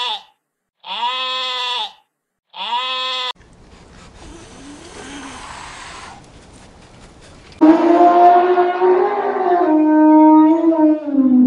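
Sheep bleating in a series of calls about a second long each, then a few seconds of faint noise. This is followed by a long, loud elephant call that wavers up and down in pitch for about four seconds and is the loudest sound in the stretch.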